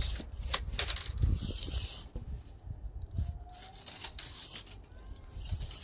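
Handling noise: rubbing and scattered sharp clicks over an uneven low rumble, with a rustling hiss in the first two seconds.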